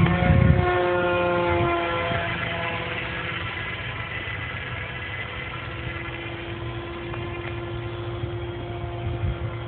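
Pusher Star RC plane's electric motor and 7x4 pusher propeller whining in flight. The whine drops in pitch over the first two seconds as the plane flies past, then holds a steady tone and slowly grows fainter.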